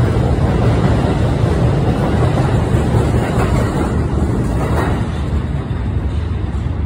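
R160B subway train with Siemens propulsion pulling out of an underground station. It makes a steady rumble of wheels and running gear on the rails as the cars pass, slowly fading as the last car heads into the tunnel.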